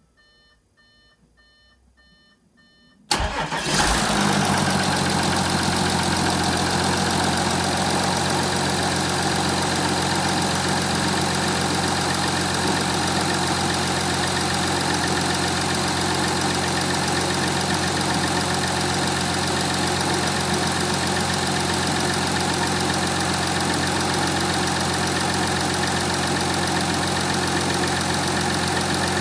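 Audi A5 3.0 TDI V6 diesel engine cold-starting: faint rapid beeping, then about three seconds in the engine fires abruptly and settles into a steady cold idle. The start and idle are normal, standard for the engine after a day standing.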